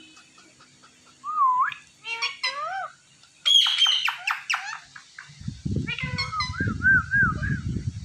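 Indian ringneck parakeets calling: gliding whistled notes and squawks, the loudest harsh calls about three and a half seconds in, then softer warbling whistles. A low rough noise runs under the second half.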